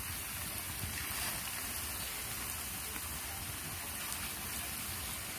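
Hot oil sizzling steadily around battered cabbage and potato pakora fritters deep-frying in a pan.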